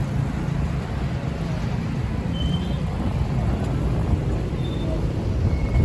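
City street traffic: a steady low rumble of cars and motorcycles passing, with a few faint short high chirps over it.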